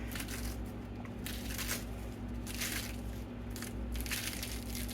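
A head of lettuce being torn up by hand into bite-sized pieces: a series of crisp, crunchy rips, about five in a few seconds, over a steady low hum.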